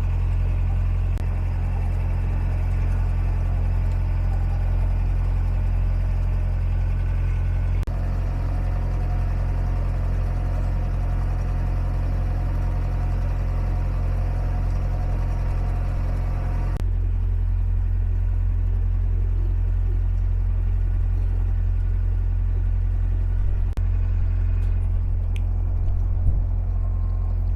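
Narrowboat's diesel engine running steadily under way, a low steady rumble, its tone shifting abruptly about eight and seventeen seconds in.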